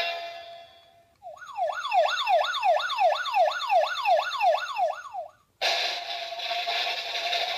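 Electronic siren sound effect from a toy sound machine: a fast up-and-down wail, about three sweeps a second, for about four seconds. It follows a fading musical note, and about two seconds before the end a loud hissing effect starts suddenly.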